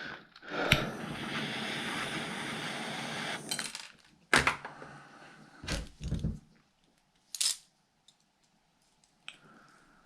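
Bench-work handling noise while a battery connector is pulled apart: about three seconds of steady scraping and rustling, then a few sharp clicks and knocks of tools and hard plastic, a second or so apart.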